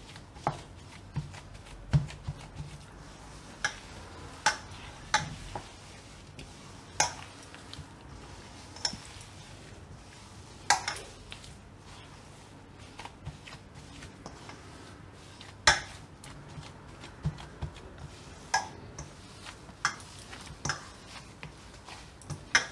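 Fresh chhena (paneer curd) being kneaded by hand in a stainless steel bowl. Irregular sharp knocks with a brief metallic ring come as the hand strikes the bowl, about one every second or two, over a faint rubbing of the curd.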